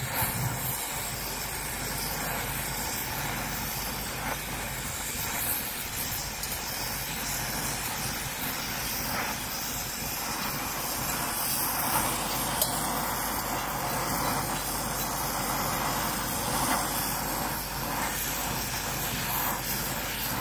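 Gas torch flame hissing steadily while brazing carbide teeth onto an earth auger blade with brass filler rod.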